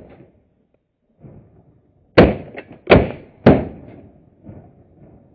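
Three shotgun shots fired in quick succession, loud and close to the microphone, the last two about half a second apart, each followed by a short echoing tail.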